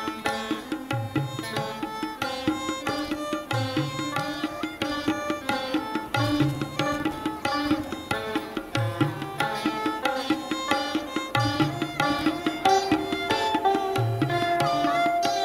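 A group of Saraswati veenas playing a Carnatic piece together, a quick plucked melody with deep drum strokes keeping time. Toward the end some notes are held longer.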